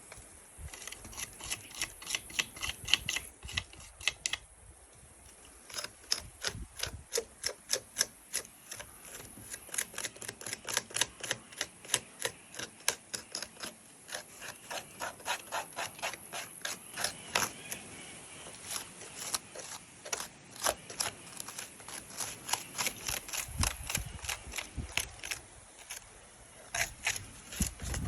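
Many sharp clicks and taps, a few a second at an uneven pace, from hard plastic parts of a NERF toy blaster being handled and worked on.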